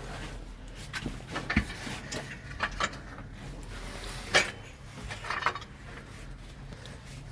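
Scattered metallic clicks and knocks of hand work on a truck's clutch release bearing and its retaining clip as they are pressed into place, the sharpest knock about four and a half seconds in, over a steady low hum.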